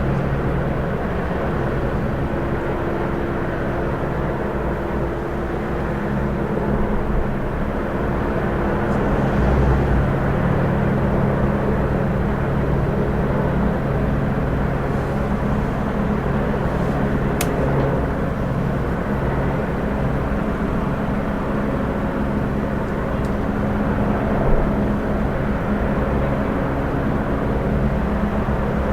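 Police helicopter hovering: a steady drone of engine and rotor, with a single sharp click about halfway through.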